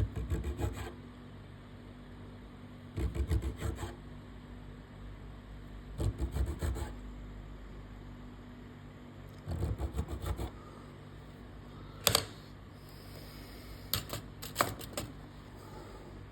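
An unbleached bone guitar nut rubbed on sandpaper in four short rasping strokes about three seconds apart, then a few sharp taps near the end.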